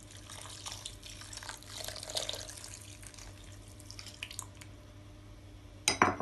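Milk poured from a glass bowl onto semolina batter in a glass mixing bowl, a soft trickling and splashing, with light rustling from a hand mixing it in. A few small ticks follow, and a sharp clink near the end.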